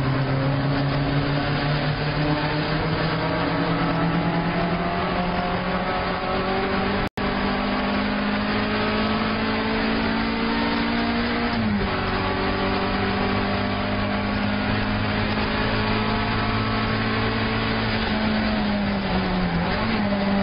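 Alfa Romeo 1750 GTV's twin-cam four-cylinder engine at racing speed, heard from inside the cabin, its revs climbing slowly through long pulls. The sound cuts out for an instant about seven seconds in; the engine note drops sharply just before twelve seconds, then falls and climbs again near the end.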